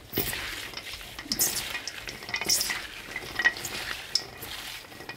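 Gloved hands tossing and squeezing a bowlful of julienned Korean radish (mu) to work in liquid seasoning: an irregular wet rustling and crackling of the shredded strips in a metal bowl.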